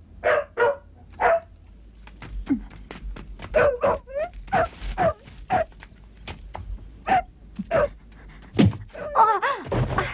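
A dog barking in quick runs of short barks, with light clicks and taps between them.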